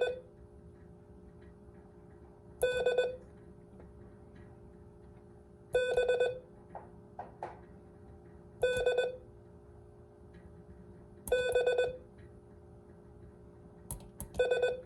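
Morse code sidetone from a Mountain Topper MTR3B transceiver keyed with a paddle, sending the letters B and D: short groups of dahs and dits in a steady beep tone, about every three seconds, with a few faint clicks between them.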